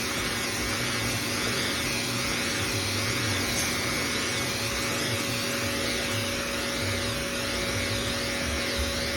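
Oneisall LM2 pet grooming vacuum running steadily while grooming a dog: an even motor hum with a rushing hiss of suction.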